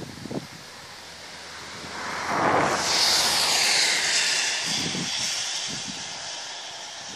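An aircraft passing overhead: its noise swells about two seconds in, peaks with a high-pitched rush, then slowly fades away.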